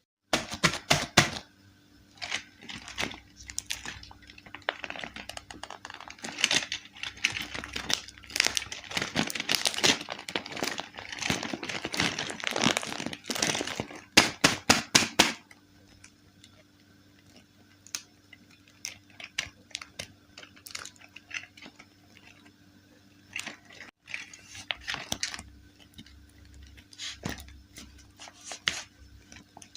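Doll packaging being handled and opened: plastic and cardboard crinkling and tearing, with many small clicks. The handling is busy and loud through the first half, then turns into sparser, quieter rustles and clicks.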